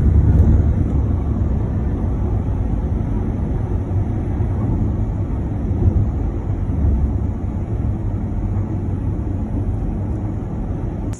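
Steady low rumble of road and wind noise from inside a moving car, loudest at the start and easing off a little.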